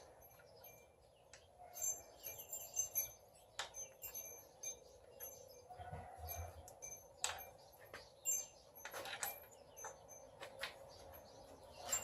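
Faint, irregular metallic clicks, ticks and light clinks of hand tools and bolts being worked on an engine, with a few short high pings among them.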